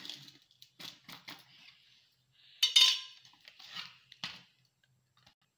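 Stainless steel cake tin and plate clattering and scraping as the tin is handled and tipped over, with one sharp metallic clank that rings briefly about two and a half seconds in, among lighter knocks.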